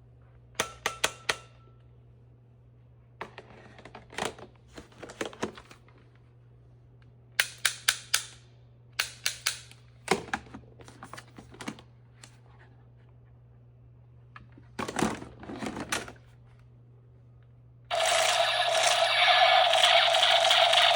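Toy Nerf blaster's plastic mechanism clicking in quick clusters of three or four sharp clicks, repeated at irregular intervals as it is worked and tested. About 18 seconds in, a loud steady rushing noise starts and continues.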